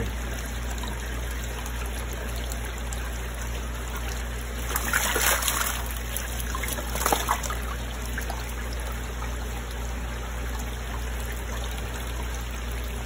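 Water trickling in a koi holding tub over a steady low hum. There are louder splashes about five seconds in and again about seven seconds in as small koi are netted and moved.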